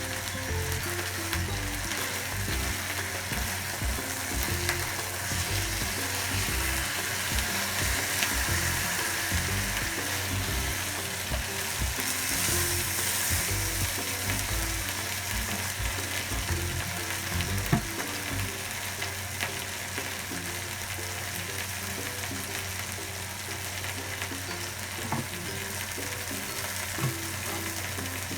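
Food sizzling as it fries in a pan, a steady hiss with scattered clicks and knocks of stirring.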